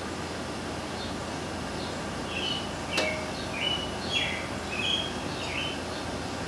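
Steady background hiss, with a string of short, high bird chirps in the middle and one sharp click about three seconds in.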